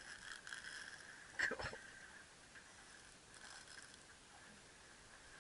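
Baitcasting reel being cranked, a faint whir and ticking from the reel, with one sharp knock about a second and a half in.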